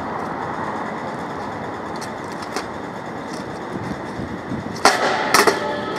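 Steady city traffic noise, with two sharp clacks about half a second apart near the end.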